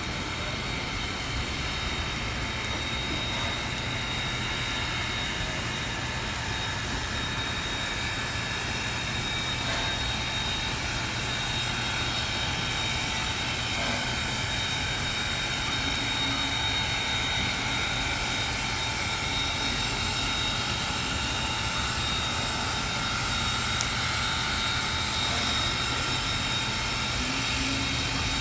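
Steady rushing hiss of rain and a steam locomotive at rest venting steam, with a thin, steady high whine over it.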